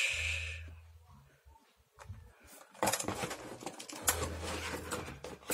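Rustling and light clicking of the keyboard's box and packaging being handled, denser from about three seconds in, over a faint steady low hum.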